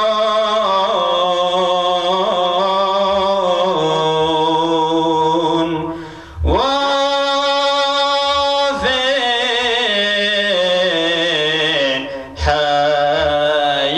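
A man chanting a Syriac church hymn solo and unaccompanied, in a wavering, ornamented line with long held notes. He breaks off twice for breath, about six and about twelve seconds in.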